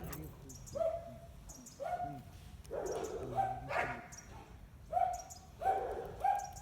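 A dog barking repeatedly, about eight short barks at uneven intervals.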